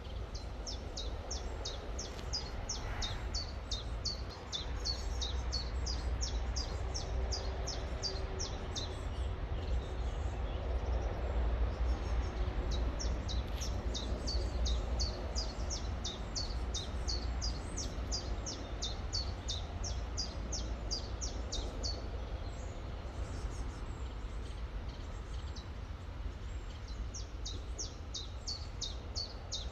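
A small bird singing long runs of rapid, high, down-slurred notes, about four or five a second, breaking off for a few seconds and starting again, over the steady rush of river water and a low rumble.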